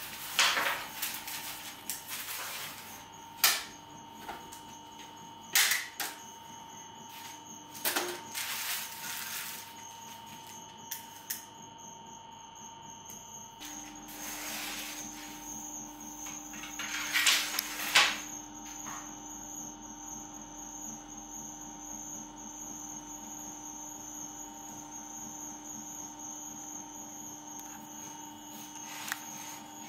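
A long wooden bread peel knocking and scraping against a stone oven floor as loaves are loaded, a handful of sharp knocks spread over the first twenty seconds or so, over a steady hum.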